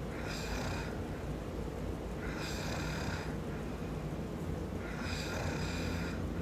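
A man snoring in his sleep: three breaths about two and a half seconds apart, each with a high-pitched noisy note, over a steady low rumble.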